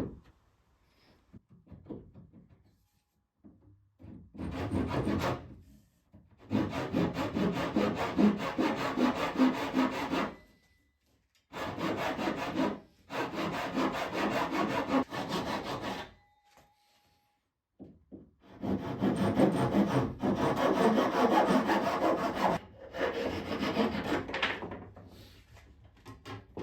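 Japanese pull saw cutting notches into the wooden frames of a rowboat, in six bouts of quick, even strokes with short pauses between them.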